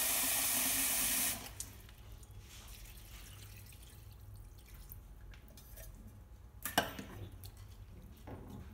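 Kitchen tap running steadily into a pitcher, shut off about a second and a half in. Then water is poured gently over glass noodles in a glass bowl, with a sharp clink near the end.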